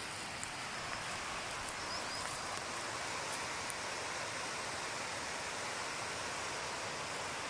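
White-water river rapids rushing steadily.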